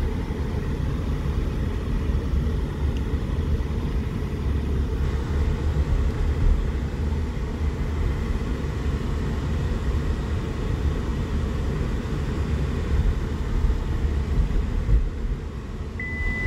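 Car being driven, heard from inside the cabin: a steady low rumble of engine and road noise. A steady high electronic tone starts near the end.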